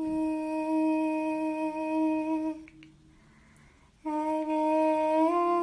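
A woman humming two long held notes: the first lasts about two and a half seconds, and after a short pause the second begins about four seconds in and rises slightly near the end.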